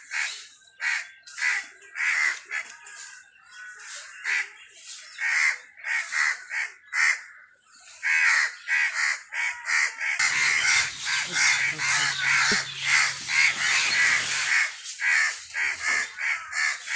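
Crows cawing: many short, harsh caws in quick succession, some overlapping.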